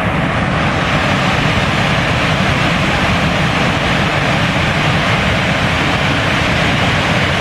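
Large waterfall roaring: a loud, steady rush of falling water with a deep rumble underneath.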